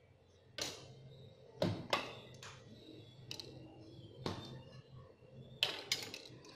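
Kitchen handling noise: a large bowl of shredded vegetables set down and a wooden cutting board and kitchen knives handled on a tabletop, giving a string of irregular sharp knocks and clicks. The loudest knocks come about a second and a half in and again near the end.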